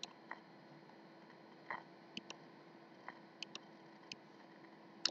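Faint, scattered clicks of a computer mouse, about ten of them, over a low steady hum.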